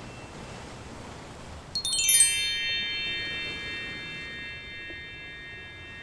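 Background music: a quick downward run of bell-like chime tones about two seconds in, each note ringing on and slowly fading, over a faint steady hiss.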